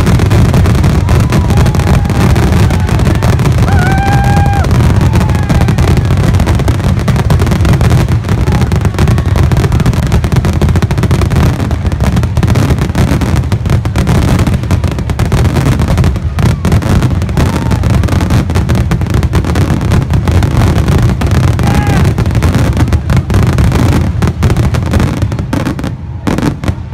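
Fireworks finale: a dense, continuous barrage of shell bursts booming and crackling with no gap between them, thinning out near the end.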